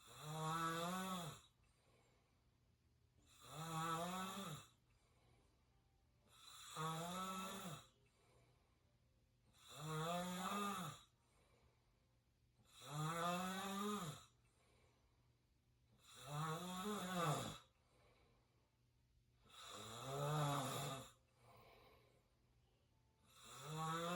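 Open-mouthed snoring: eight snores about three seconds apart, each a pitched rasp that rises and then falls.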